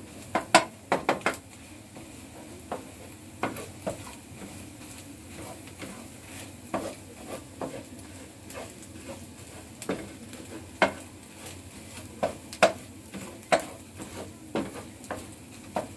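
Wooden spatula stirring scrambled eggs in a non-stick frying pan over a steady sizzle, with irregular sharp taps and scrapes of the spatula against the pan, a quick run of them about half a second in.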